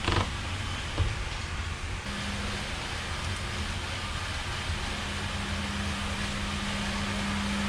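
Two sharp clicks about a second apart near the start as the axle nut is torqued down with a torque wrench, over a steady machine hum and hiss from floor-cleaning equipment; the hum strengthens about two seconds in.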